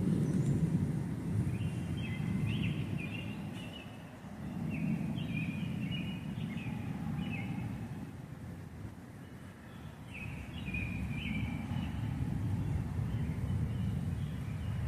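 Thunder rolling and growling low, swelling and fading in several long waves, with birds chirping in short phrases over it.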